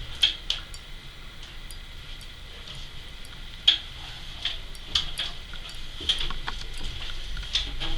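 Footsteps going down a staircase: irregular light taps and clicks, one every second or so, over a faint steady high whine.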